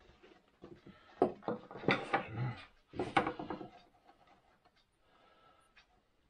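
Wooden workpieces being handled: a quick series of light knocks and clatters of wood against wood or the bench, then faint rustling.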